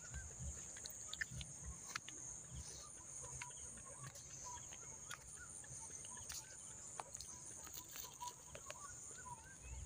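Faint outdoor ambience: short, scattered bird chirps over a steady high-pitched insect hiss, with a low rumble underneath.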